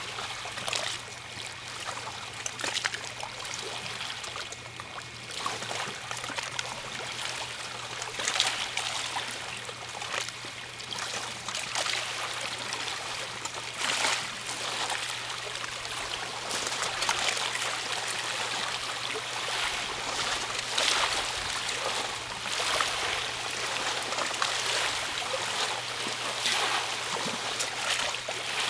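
Small lake waves lapping onto a sandy shore: a steady wash with a soft splash every second or two.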